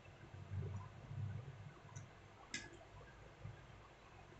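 Faint clicks of tweezers and a soldering-iron tip against a circuit board while a replacement IC is soldered in by hand. A single sharper click comes about two and a half seconds in, and low handling rumble fades out in the first second and a half.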